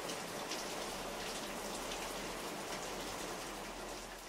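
Steady rain falling, with scattered drops ticking, fading out near the end.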